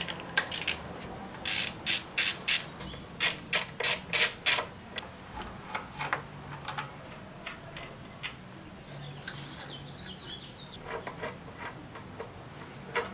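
Socket ratchet clicking in quick runs as it undoes the 10 mm bolts on an engine cover. The clicks are loudest in the first few seconds and turn fainter and sparser after that.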